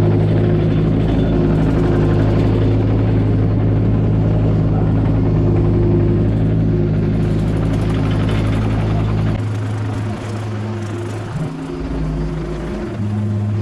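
Mini excavator's diesel engine running steadily at working speed. About nine seconds in the sound changes and drops a little in level, then comes and goes unevenly.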